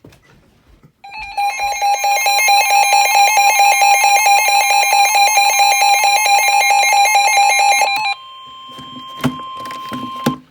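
NOAA Weather Radio sounding a tornado warning alert. A loud, rapidly pulsing electronic alarm plays over a steady tone for about seven seconds. The alarm then drops out and the single steady warning tone carries on more quietly, with a couple of knocks, until it cuts off just before the end.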